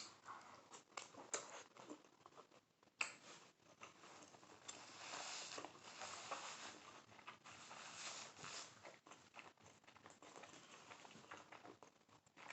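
Faint eating sounds: chewing, with soft clicks and rustles from handling the food and utensils.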